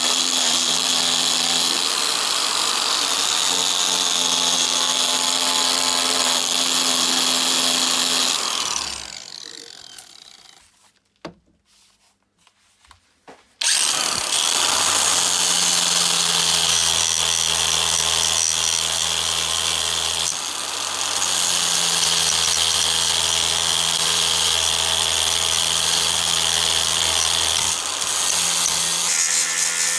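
Electric power tool running steadily under load, with a loud hissing, grinding noise as it works on rusty steel pliers. About nine seconds in it winds down to near silence with a few clicks, then starts again abruptly about four seconds later and runs on.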